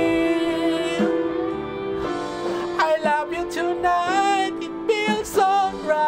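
A man singing along to a soft-rock ballad backing track, holding long notes over the steady accompaniment.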